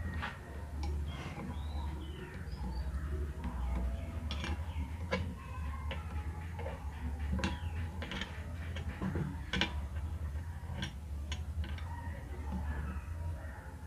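Irregular metallic clinks and taps, a few every second, from tools and small parts being handled during work on a Yamaha engine, over a steady low hum.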